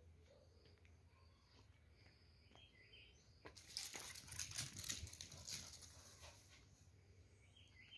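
Near-quiet yard with a few faint high chirps, and from about three and a half seconds in, two or three seconds of dense clicking and scuffing from a small dog's paws as it dashes across brick paving.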